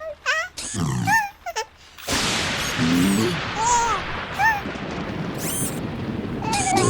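Cartoon sound effect of heavy rain pouring in, starting suddenly about two seconds in and running on as a steady rush. Short, high squeaky baby-like vocal sounds come before it and a few more over it.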